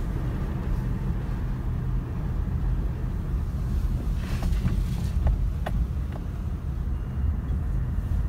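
Car driving slowly, heard from inside the cabin: a steady low rumble of engine and road noise, with a few faint clicks about four to six seconds in.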